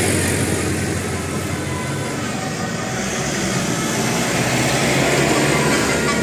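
Bus passing close by: steady engine hum and road noise, with no horn tune sounding.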